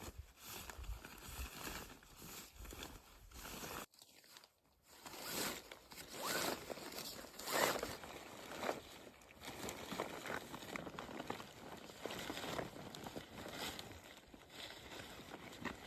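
Irregular crunching and rustling handling sounds, with a short break about four seconds in.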